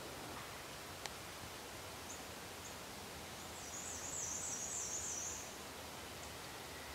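Quiet woodland ambience with a steady hiss. A small bird gives a couple of thin chips and then a short, very high-pitched rapid trill about halfway through. There is a single sharp tick about a second in.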